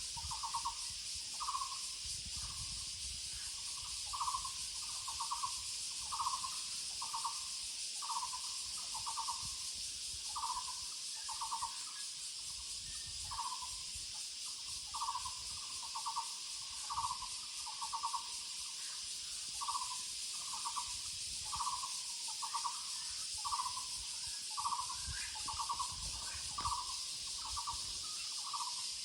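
Muller's barbet (Taiwan barbet) calling: a short rolled note near 1 kHz, repeated over and over about twice a second in an uneven rhythm.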